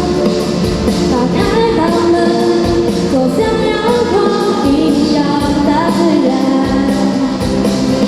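A song with a female singing voice over a steady beat.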